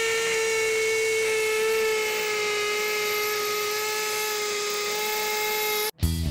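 Bosch GSB18V-1330C cordless hammer drill hammer-drilling a 1/4-inch masonry hole into concrete: a steady high whine that sags slightly in pitch under load after about two seconds. It stops abruptly about six seconds in as the hole is finished.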